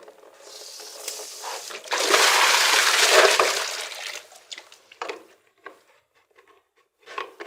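Water rushing out of a rainwater tank's first-flush diverter as its drain is opened, swelling to a loud gush for about two seconds and then dying away, followed by a few light knocks.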